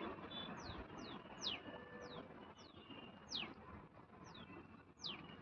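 A bird calling: a series of short, high chirps that each fall steeply in pitch, about a dozen at uneven intervals, faint over a low background haze.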